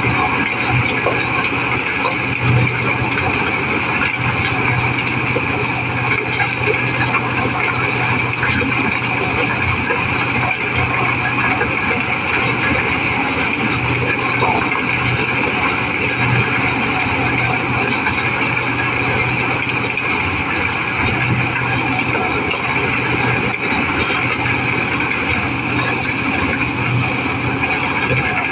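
Mobile corn sheller running steadily under load, its engine and threshing drum working as whole unhusked corn cobs are fed into the hopper and kernels pour out of the chutes into plastic basins.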